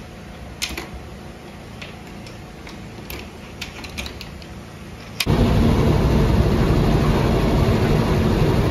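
A few faint, sharp clicks over a quiet background. About five seconds in there is a sudden cut to the steady engine and road noise of a moving bus, heard from inside the bus.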